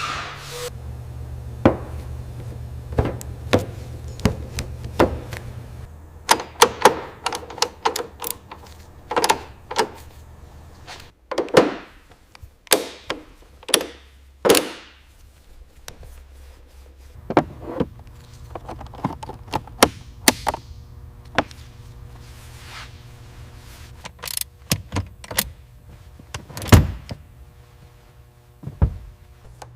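A long series of irregular sharp knocks, clicks and thunks, over a low steady hum that drops out for about ten seconds in the middle.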